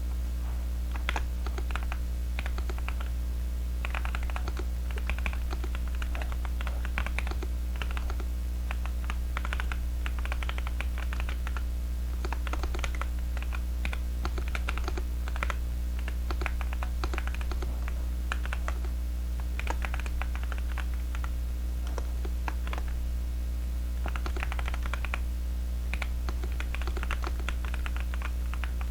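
Typing on a zoom75 custom mechanical keyboard with tactile Kailh Heavy Burnt Orange switches and full foam: irregular runs of keystroke clacks with short pauses between bursts. A steady low electrical hum sits underneath throughout.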